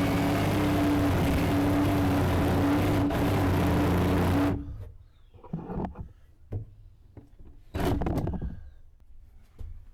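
A power tool running steadily with a constant hum, cutting off suddenly about four and a half seconds in, followed by scattered knocks and clattering of demolition debris.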